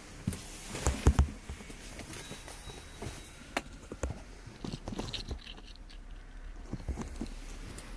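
Handling noise from a phone being moved around a car's cabin: scattered knocks, clicks and rubbing, the loudest cluster about a second in, over a faint low steady hum.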